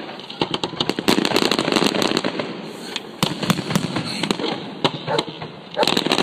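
Fireworks going off: rapid runs of sharp bangs and crackling, heaviest about a second in and again near the end.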